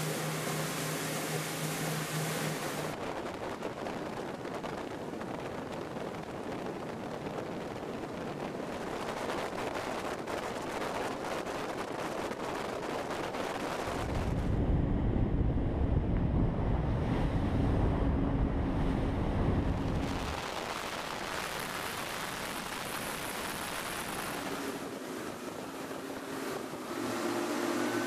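Motorboats running at high speed over open water: engine drone mixed with wind and the rush of water and spray. A heavier low rumble comes in for several seconds just past the middle.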